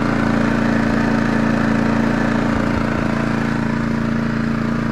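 Champion 4500-watt dual fuel inverter generator's engine running at a steady, even speed.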